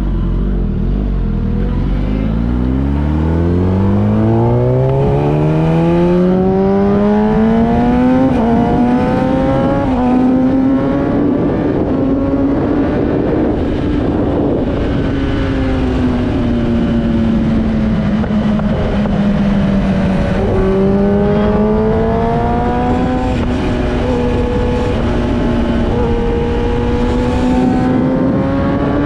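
Sport motorcycle engine pulling hard from low revs, its pitch climbing over the first several seconds with a break at an upshift about eight seconds in, then running at fairly steady cruising revs, easing off and picking up again around twenty seconds in. A steady rush of wind and road noise runs underneath.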